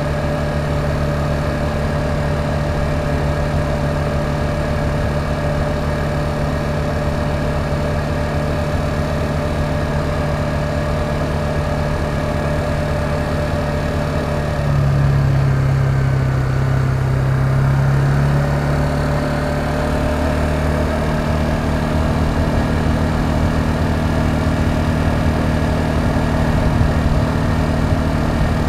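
K-Lion Commander 200 ATV engine running steadily while riding at road speed. About halfway through the note drops and grows a little louder for a few seconds, then settles back to a steady drone.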